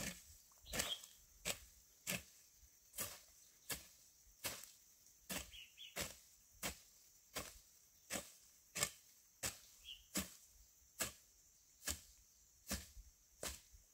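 A tool chopping in a steady rhythm of sharp strikes, about three every two seconds, with faint short high chirps in between.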